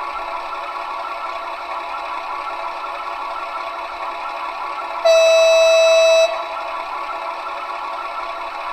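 Sound module of a Gauge 1 model V 160 diesel locomotive playing a steady diesel engine idle. About five seconds in, the horn sounds once, a single steady note lasting just over a second that cuts off sharply.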